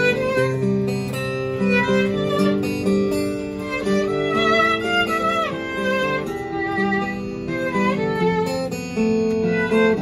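Violin playing a melody with several pitch slides over an accompaniment of sustained low notes.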